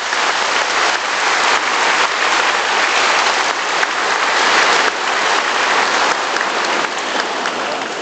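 Congregation applauding: a dense, steady mass of clapping that eases off gradually near the end.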